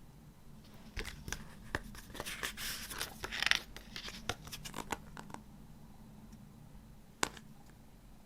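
Hands handling CD album packaging: a few seconds of clicks, taps and rustling of paper and card, then a single sharp tap near the end.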